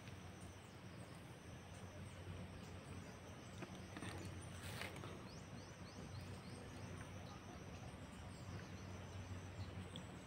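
Faint outdoor background: a steady high insect drone over a low hum, with one short rustling scrape about five seconds in.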